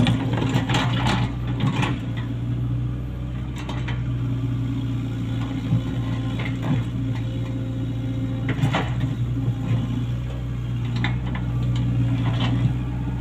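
Komatsu PC75US-3 excavator's diesel engine running steadily, with a cluster of metallic clicks and clanks in the first couple of seconds and single knocks scattered after that.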